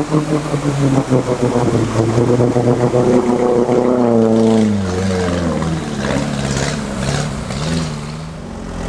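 A small off-road 4x4's engine is held at high revs as the vehicle ploughs through deep muddy water, with water splashing. The revs drop about halfway through.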